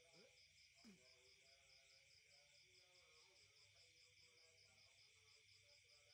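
Faint chorus of night insects: a steady high trill with a pulsing note about four times a second. A brief low swooping sound rises above it about a second in.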